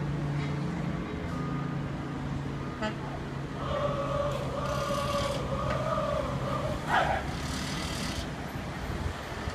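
Road traffic on a busy multi-lane street below: a steady hum of vehicle engines, then a wavering high tone lasting about three seconds that ends in a quick sweep up and down, with two short bursts of hiss.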